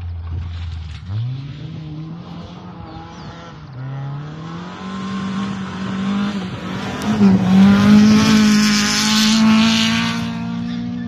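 Rally car engine revving hard as it approaches on a gravel stage. Its pitch climbs, dips briefly about four seconds in, then is held high. The car grows loudest near the end as it slides through a corner and passes close, with a rush of tyre-on-gravel noise.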